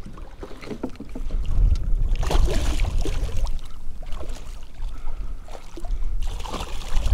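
Water splashing beside a fishing kayak as a hooked sheepshead thrashes at the surface and is scooped into a landing net, in two bursts about two and six seconds in. A low wind rumble on the microphone runs under it.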